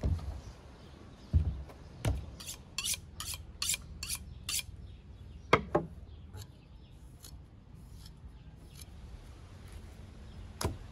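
A heavy wooden cutting board thumps and slides on a wooden table. Then come about seven quick, evenly spaced scraping strokes of a steel knife being sharpened, followed by a few sharp metallic clicks.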